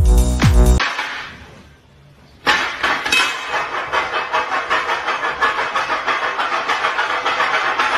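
Bass-heavy electronic music cuts off within the first second. After a short lull, a sudden loud crash of breaking glass starts about two and a half seconds in and runs on as a dense clattering rattle for about six seconds.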